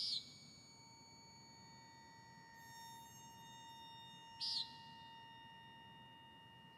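Quiet ambient drone of several steady high tones, broken twice by a brief high hissing chirp: once at the start and again about four and a half seconds later.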